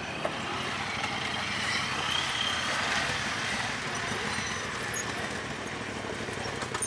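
Honda Talon 1000R side-by-side's engine running steadily, over an even rushing noise.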